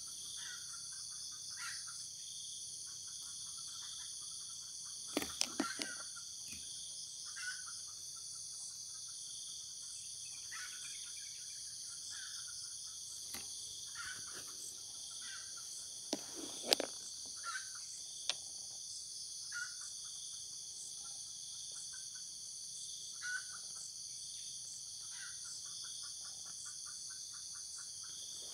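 Steady, high-pitched chorus of forest insects, with short chirping calls every second or two. A few sharp clicks of handling noise stand out about five seconds in and again past the halfway point.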